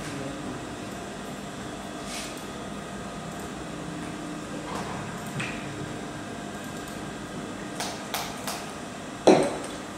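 A few light clicks and taps from hands working a Brother industrial sewing machine and fabric at the needle, over a steady hum, with one sharper knock about nine seconds in. No run of stitching is heard.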